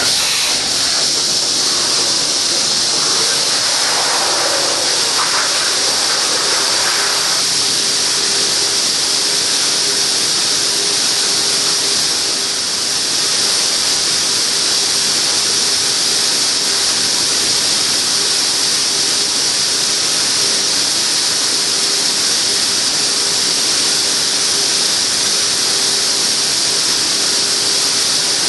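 Makino horizontal machining center milling an extrusion die with a small ball end mill: a loud, steady spray hiss from the cutting zone. A steady tone joins about five seconds in and holds.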